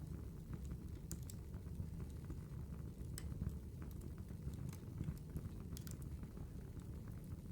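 Campfire crackling: a steady low rumble of burning wood with irregular sharp pops and snaps scattered throughout.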